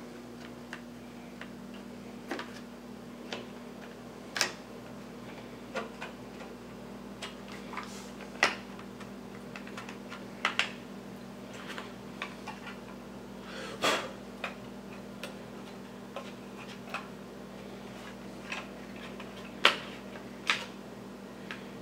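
Irregular light clicks and taps of small metal parts and a screwdriver being handled while a graphics card's stock cooler is taken off, the sharpest click about two seconds before the end, over a steady low hum.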